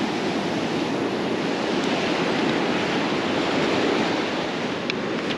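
Surf breaking and washing up on a sandy beach, a steady hiss of waves with wind on the microphone.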